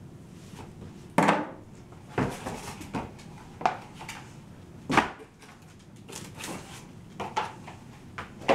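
Cardboard packing pieces and plastic wrap handled while a stainless steel sink is unpacked from its box: a series of sharp knocks and thumps, the loudest about a second in and about five seconds in, with rustling between.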